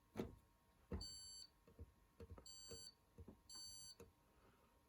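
Hoover Link washing machine's control panel beeping three times, short high-pitched beeps as its option buttons are pressed, with faint button clicks in between.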